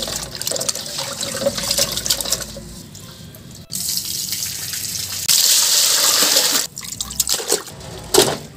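Raw chicken pieces being rinsed by hand in turmeric-and-salt water in a large aluminium pot, with the water sloshing. Partway through, the yellow wash water is poured from the tilted pot in a steady stream splashing onto the ground. Near the end come a few wet slaps as the pieces drop into a metal tray.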